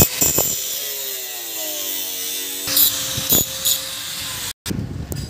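Angle grinder switched off and spinning down, its whine falling steadily in pitch over about two and a half seconds, followed by a few sharp metallic knocks.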